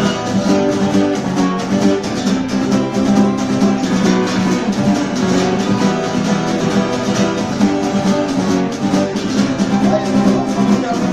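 Acoustic guitar strummed in a steady rhythm with no singing: the instrumental close of a song.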